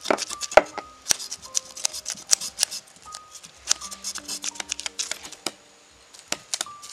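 A knife blade scraping the scales off a whole red mullet on a wooden board: quick, irregular rasping scrapes and clicks, with a short lull about six seconds in. Soft background music plays underneath.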